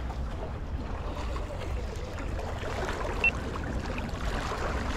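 Wind buffeting the microphone with sea water washing against shore rocks, and a short high chirp about three seconds in.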